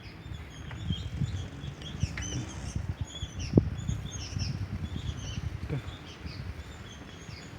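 Small birds chirping over and over, over a low rustling with scattered soft knocks.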